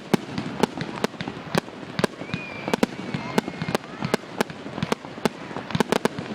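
Fireworks display: rapid, irregular sharp bangs and crackling reports, about three a second. A thin whistling tone or two sounds through the middle.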